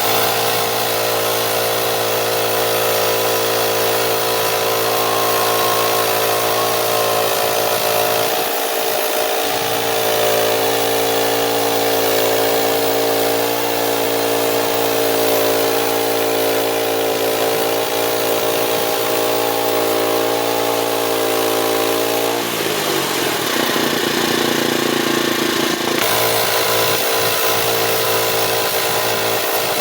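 Petrol engine of a Frontier OS27 portable band sawmill running steadily at speed, then its pitch drops about two-thirds of the way through and it carries on at a lower, rougher pitch.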